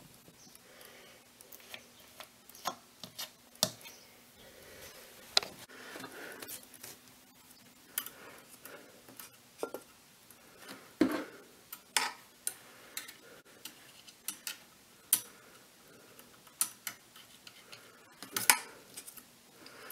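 Webster-Chicago 346 record changer's mechanism turning, giving irregular light metallic clicks and ticks from its gears and velocity-trip parts, over a faint steady hum that fades about halfway through.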